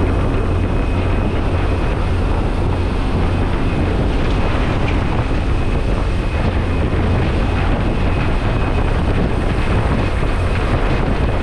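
Steady, loud noise of a skydiving jump plane in flight with its door open: the propeller engine's low drone mixed with slipstream rushing past the open doorway.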